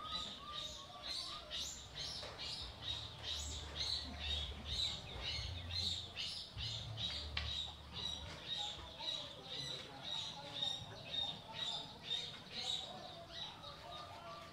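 Animal chirping: short high chirps repeated about twice a second, with lower short calls joining in about halfway through.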